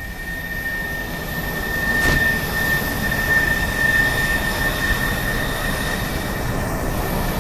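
Steady machine noise, like a running engine or motor, with a constant high whine over a rushing hiss, growing louder about two seconds in.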